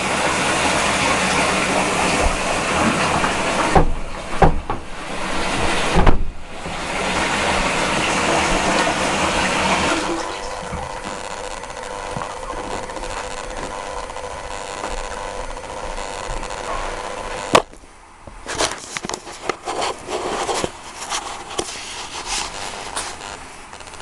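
Kitten fur rubbing and scraping against the camera microphone: a loud rushing rustle that drops off about ten seconds in, followed by a sharp click and scattered scrapes and rustles near the end.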